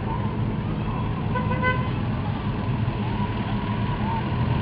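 An old pickup truck's engine running with a steady low rumble as it drives past. About a second and a half in, a vehicle horn toots once, briefly.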